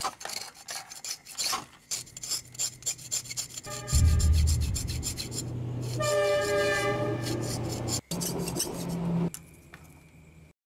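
A metal blade scraping the coating off a copper wire in quick rasping strokes. From about four seconds in, a loud steady low hum with several higher tones comes in over the scraping and stops about a second before the end.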